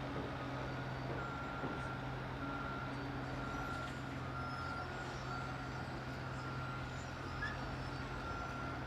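A heavy diesel construction machine running steadily while a backup alarm beeps in long, evenly spaced tones about once a second.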